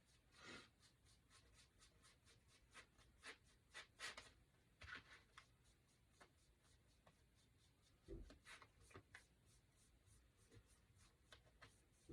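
Faint, irregular swishing strokes of a paintbrush brushing paint onto a wooden cutout, with a soft low thump about eight seconds in.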